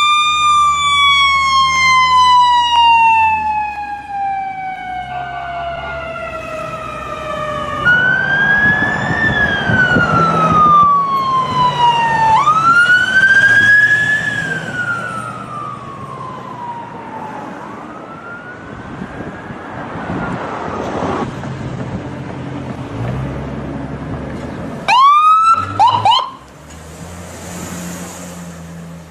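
American ambulance siren wailing: one long, slowly falling tone, then shorter rise-and-fall wails that grow fainter. Near the end come a few quick rising whoops. A low vehicle rumble runs underneath.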